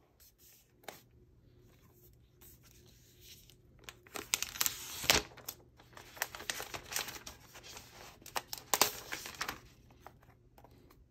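Thin plastic protective wrap crinkling and rustling as it is handled and pulled off a new MacBook Pro, with a few light taps of the laptop against its box. The crinkling starts as scattered clicks and becomes dense from about four seconds in, with its loudest crackles near the middle and again near the end.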